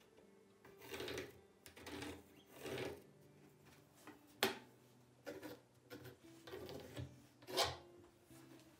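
Pencil scratching lines onto a rough, weathered pallet board in a series of short strokes, with a sharp tap about halfway through and a louder sharp stroke near the end.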